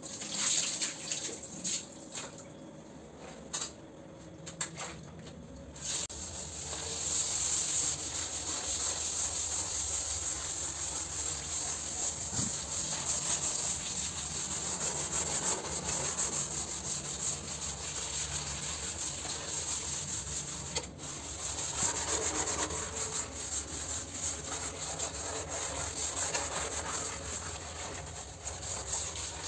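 Scattered knocks at first, then from about six seconds in, steady back-and-forth scrubbing of a wet shower floor.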